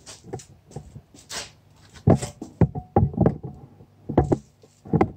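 A series of irregular knocks, bumps and clatter close to the microphone, handling noise as the camera is picked up and moved around the motorcycle.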